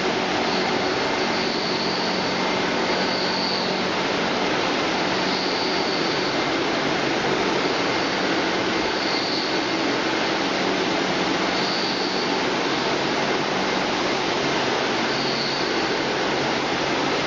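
Automatic french fries production line machinery running: a steady, even rushing noise with a constant low hum, and a faint high chirp every couple of seconds.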